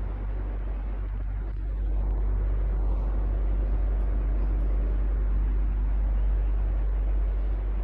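Electric fan running steadily: a continuous low hum and rushing air, getting slightly louder about two seconds in.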